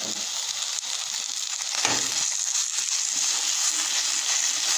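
Raw pork frying in hot oil in an enamel saucepan, a steady sizzle, while a metal spoon stirs and breaks up the meat, with one short knock about two seconds in.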